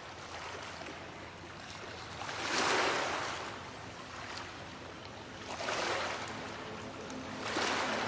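Ocean surf fading in, waves washing in three swells: about a third of the way in, about three quarters, and near the end. Faint held synth tones begin to rise under the waves near the end.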